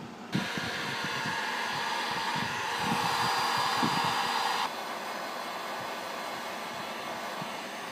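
Heat gun blowing hot air onto the spliced servo wire. It starts suddenly about a third of a second in and runs steadily with a faint fan whine, then drops to a quieter level a little under five seconds in.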